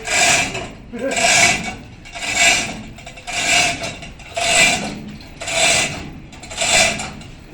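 Rasping scrape at a large metalworking lathe, repeating evenly about once a second, each stroke carrying a short ringing tone.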